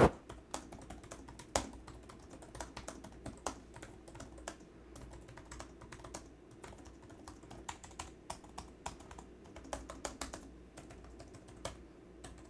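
Typing on the keyboard of a Dell XPS 17 9700 laptop: quick, uneven clicks of its low-travel scissor-switch keys.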